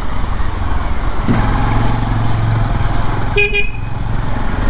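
Motorcycle engine running steadily at riding speed, heard from the rider's seat, with a short horn beep about three and a half seconds in.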